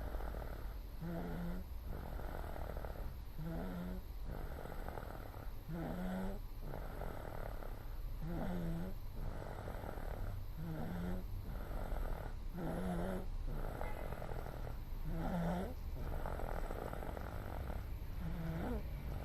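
A two-year-old child snoring in sleep while sick, a snore with each breath about every two and a half seconds.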